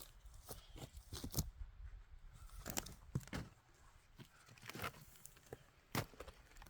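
Faint, scattered crunches and snaps of someone moving about and handling freshly cut firewood.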